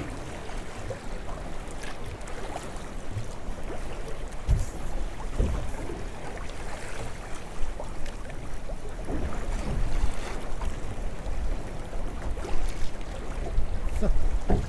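Sea and wind noise aboard a small fishing boat drifting at sea, water washing against the hull, with a few dull knocks.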